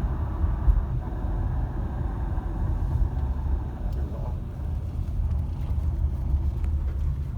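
A car being test-driven to check its gearbox for noise: a steady low rumble of engine and road. The higher part of the noise eases off about halfway through.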